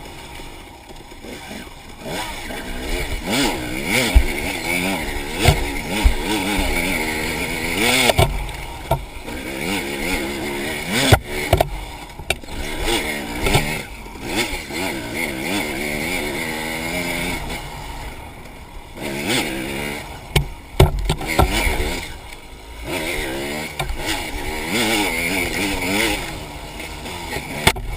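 Enduro dirt bike engine revving up and down over and over as it is ridden, with frequent knocks and bumps.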